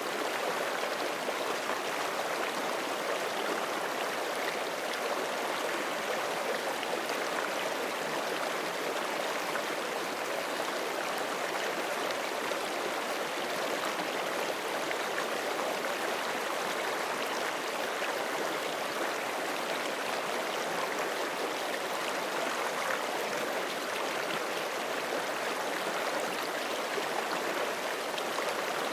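A forest stream rushing steadily over rocks, with continuous babbling and gurgling water.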